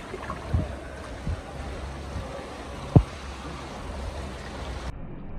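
Shallow river water rushing steadily over rocks and stones, with a few short low knocks, the sharpest about three seconds in.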